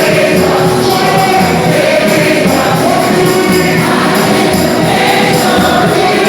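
Gospel music: a choir singing over a steady beat.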